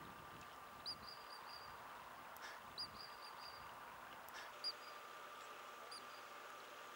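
Ground squirrel giving high, sharp alarm chirps: four calls a second or two apart, the first two trailing into a quick run of shorter notes, over a faint steady hum.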